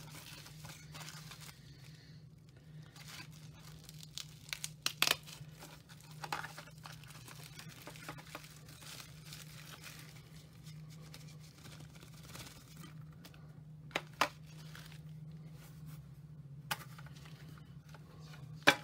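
Plastic bubble-wrap packaging crinkling and tearing as it is pulled open and off a calculator by hand, with a few sharp clicks or knocks along the way.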